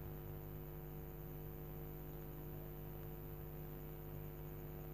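Faint, steady electrical hum with a light hiss underneath, unchanging throughout: mains hum in the recording.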